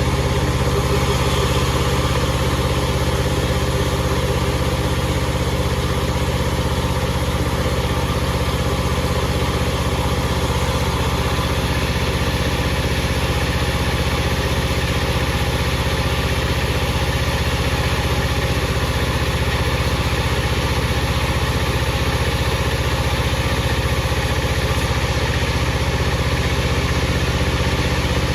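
Power saw machinery running steadily with a constant low hum and a noisy whirr over it.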